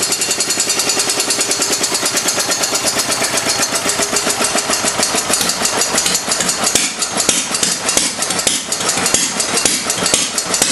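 Fairbanks-Morse Z Style D single-cylinder stationary engine running with its idle turned up, a rapid, even beat of firing strokes. From about halfway the beat grows more uneven, with sharp clicks.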